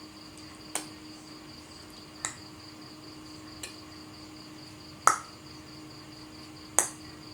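Five sharp clicks or taps at uneven intervals, the fourth and fifth loudest, over a steady high pulsing insect chirr and a low hum.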